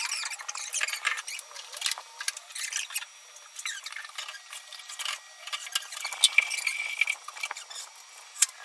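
Scattered knocks, clicks and scrapes of black particle-board wardrobe panels being handled during assembly, with a brief high squeak about six seconds in.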